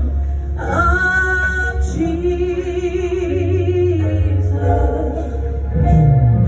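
Gospel praise song: singers holding long notes over a strong, steady bass line.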